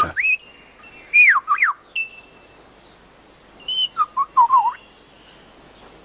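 Male superb lyrebird singing clear whistled notes in his courtship song. A rising note at the start is followed by two falling swoops about a second in, a short held note, and then a quick warbling phrase around four seconds in.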